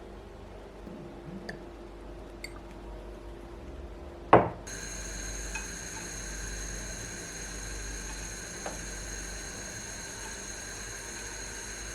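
Light handling clicks, then one sharp clink of glass or dishware about four seconds in. Right after it a steady hiss starts and carries on.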